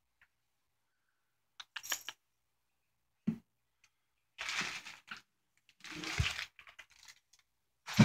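A cat moving about on top of a refrigerator and jumping down: a few light clinks, scattered knocks and rustles, then a loud thump at the very end as it lands.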